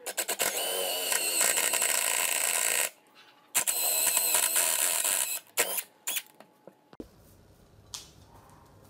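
Small electric drill motor running in two bursts, about three and two seconds long, then switched on for a few short blips.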